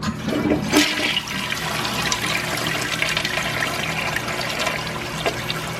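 Toilet flushing: a click about a second in, then steady rushing water.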